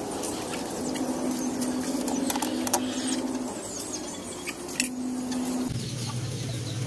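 Scattered metallic clicks and clinks of a wrench working the carburetor's nuts and fittings. A steady low hum runs underneath; it stops and restarts a few times and drops to a lower pitch near the end.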